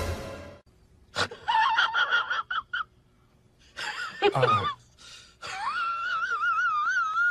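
A cat meowing. It makes a few short, high, squeaky calls, then one near the middle, then a long meow whose pitch wavers up and down near the end.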